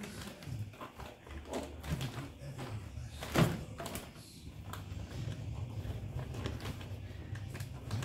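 Hands forcing a mountain-bike tire bead over the rim onto a wheel fitted with a CushCore insert: rubber rubbing and squeaking against the rim amid handling noises, with one sharp knock about three and a half seconds in as the wheel is shifted.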